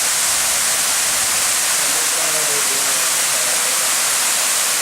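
Waterfall rushing steadily: a loud, even hiss of falling water.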